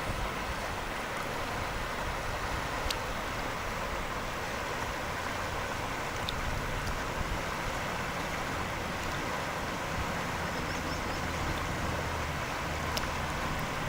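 Steady rushing of a river flowing, with a few faint clicks.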